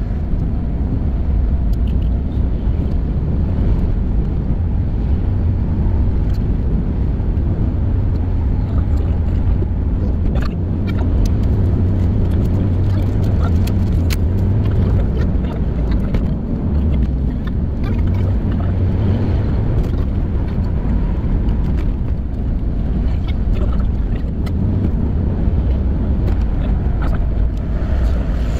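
Steady low rumble of a car driving along a highway, heard from inside the cabin, with a few faint clicks.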